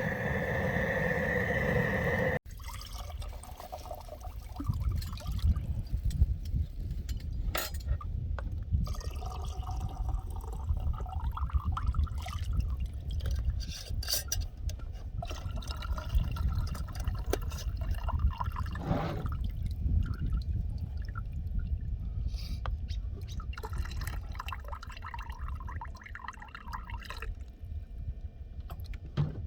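A large pot of turkey stock at a rolling boil over a propane burner, bubbling and popping irregularly over a low rumble. A steady hum at the start cuts off abruptly about two seconds in.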